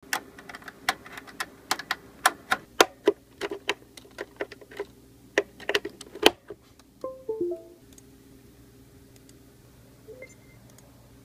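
A USB cable plug clicking and scraping against computer and keyboard ports: a quick, irregular series of sharp plastic-and-metal clicks for about six seconds. About a second later comes a short run of tones stepping down in pitch.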